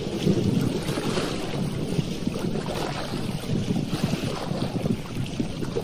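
Wind buffeting the microphone over choppy lake water, with small waves lapping.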